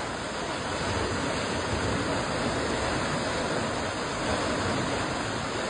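River in high snowmelt flood, fast brown water rushing steadily under a footbridge.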